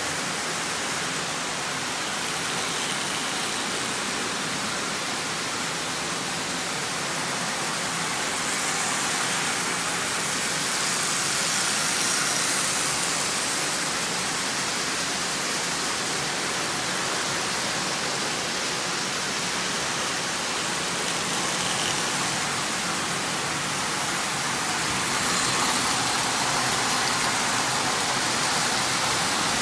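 Several Lionel O-gauge toy trains running at once on three-rail track: a steady rushing rumble of wheels and motors, swelling a little now and then as trains pass close.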